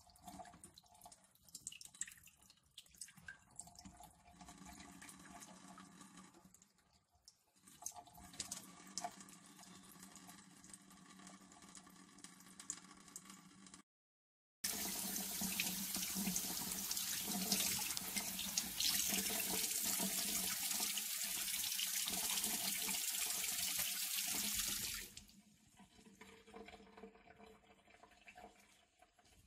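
Kitchen tap running over a trout fillet as it is rinsed by hand in a stainless-steel sink. The stream is moderate at first. After a brief silent break about halfway, it runs much louder and splashes for about ten seconds, then falls away near the end.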